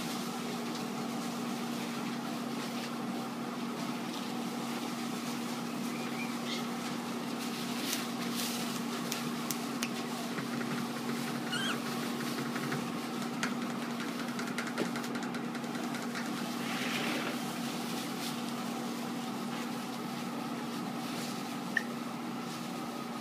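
A steady machine hum runs throughout. Over it come faint rustles and a few short, faint squeaks from Cavalier King Charles spaniel puppies playing in shredded-paper bedding.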